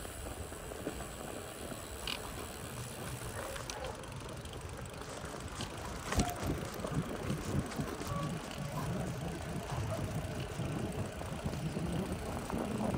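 Brompton folding bicycle rolling over asphalt: steady tyre and road noise with light rattles, a few small clicks and one sharp click about six seconds in.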